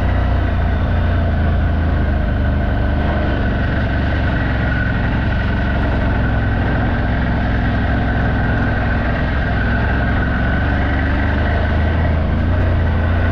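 CF Moto 1000's V-twin engine running steadily.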